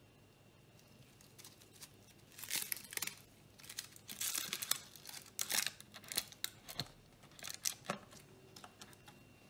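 Paper cocktail umbrella being pushed open in gloved fingers: the folded paper canopy crinkles and crackles in a series of uneven bursts, starting about two seconds in and stopping near the end.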